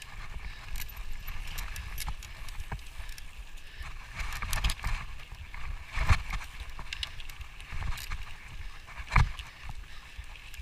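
Footsteps and gear knocking irregularly on a mountain trail, with a low wind rumble on the microphone.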